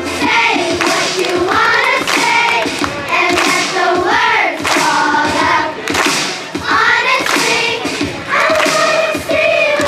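A school chorus of children singing together, with sharp percussive hits, like claps or thumps, throughout.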